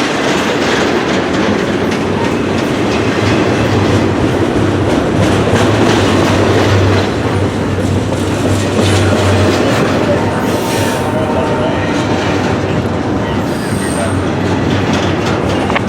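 Long freight train of loaded cars rolling past at speed: a steady clatter of wheels over the rail joints. A low hum runs through the middle, and a brief high wheel squeal comes near the end.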